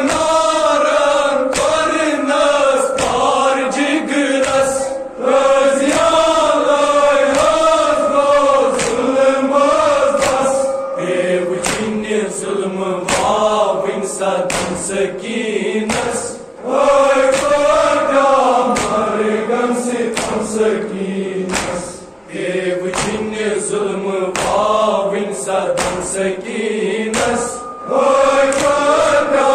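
A group of reciters chanting a Kashmiri noha, a Muharram lament, in unison, with sharp beats sounding through the singing.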